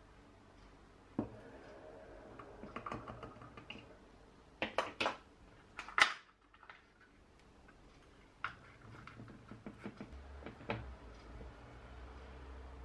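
Glass bottle and spray top being handled: scattered light clicks and knocks, the sharpest a single click about six seconds in.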